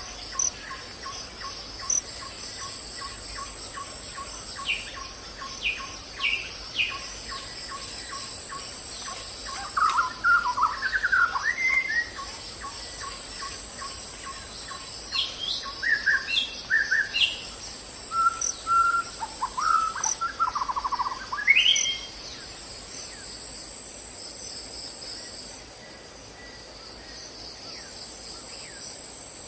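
Birds chirping and calling in short bursts over a steady high-pitched insect drone. A soft, regular series of pips, about two a second, runs through the first half. The chirping is busiest from about ten seconds in and stops a little after twenty seconds, leaving the insect drone.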